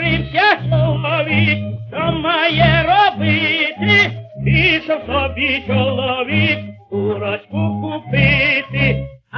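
A 1928 Columbia 78 rpm record playing a Ukrainian folk song: a tenor sings with a wide vibrato over a small orchestra, with a pulsing bass beneath.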